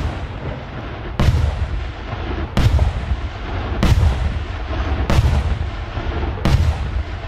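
Aerial firework shells going off one after another: six sharp booms about every 1.3 seconds, each followed by an echoing rumble that carries on between them.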